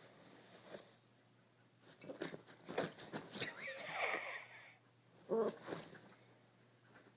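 A poodle digging and pawing at bedding: uneven bursts of rustling and scratching on fabric, with a short squeaky sound partway through and a brief lower sound a little later.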